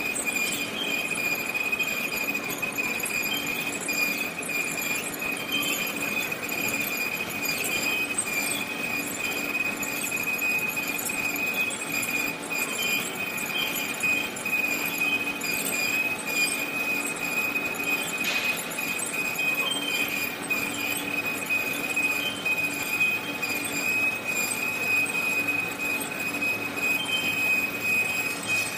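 Automatic horizontal band saw cutting stainless steel bar: a steady high-pitched squeal from the blade in the cut, over the machine's lower running hum.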